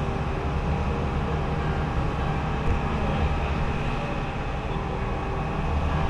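Fire truck's diesel engine idling steadily, a continuous low rumble.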